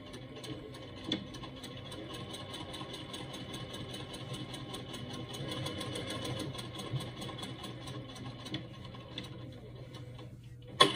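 Electric sewing machine stitching a seam through folded vacuum-bag material, running steadily with a fast, even rhythm of needle strokes. A sharp knock comes right at the end.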